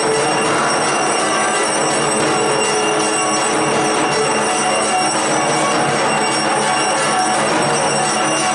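Bells ringing continuously in a dense, steady jangle, with no breaks.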